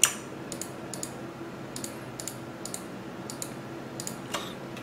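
Computer mouse and keyboard clicking: one sharp click at the start, then about a dozen lighter clicks at uneven intervals, over a faint steady low hum.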